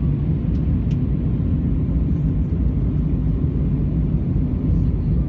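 Steady low rumble of engine and airflow noise inside the cabin of an Airbus A319 airliner in flight.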